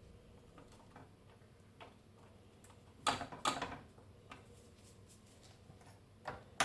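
Quiet room with a few light clicks and knocks, and a louder short cluster of knocks about three seconds in.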